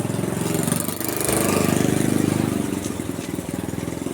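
An engine running steadily with a pulsing low note, growing louder about a second in and then easing off.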